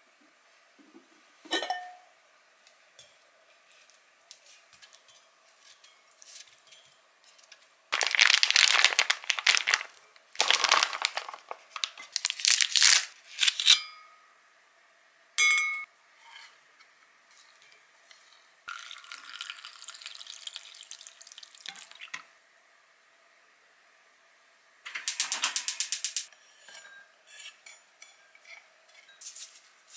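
Kitchen food-preparation noises: several bursts of handling as ingredients and a packet are dealt with at a pot, then near the end a quick run of kitchen-knife chops on a wooden cutting board.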